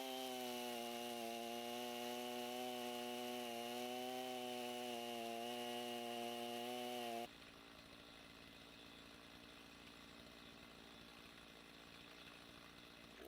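Two-stroke chainsaw running at high speed with a steady pitch while cutting pine. About seven seconds in, it cuts off abruptly to a much quieter, even hiss.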